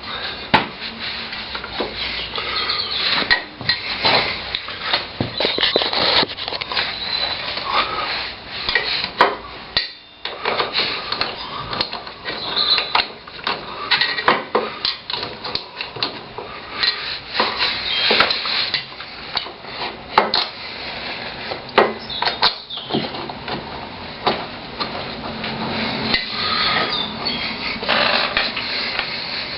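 Scattered metallic clinks and knocks of tools and parts being handled while a motorcycle's front brake caliper is fitted back over the wheel.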